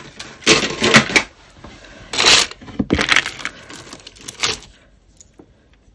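Bead necklaces and chains clattering and rattling against each other as a tub of costume jewellery is rummaged through by hand, in several short bursts. It goes much quieter about five seconds in.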